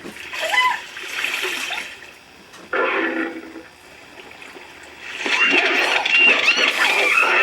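Dubbed-in animal sound effects over water splashing: sputtering, splashy noise in the first half, then a dense run of high, warbling animal chirps and squeaks from about five seconds in.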